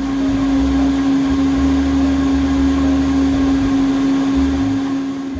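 Bosch stand mixer's electric motor running at a steady speed while beating cake batter in its bowl: a loud, even hum over a low rumble.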